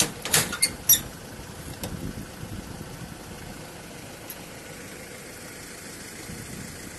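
Sharp metal clanks in the first second as the latch and door of a wire transport cage are fastened, the loudest about a second in; then a pickup truck's engine idling steadily.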